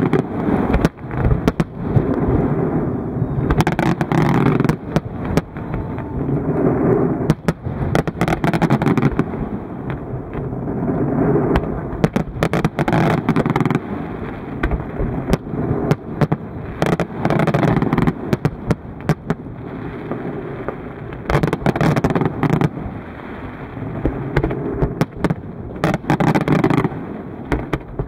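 Fireworks display: a dense run of sharp bangs and crackles over a continuous rumbling din that swells and eases every couple of seconds as volleys of comets are fired.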